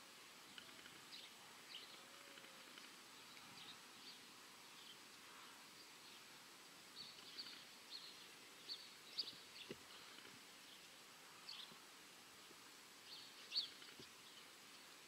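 Near-silent rural ambience with small birds chirping here and there, the short chirps coming more often in the second half. A couple of faint knocks are also heard.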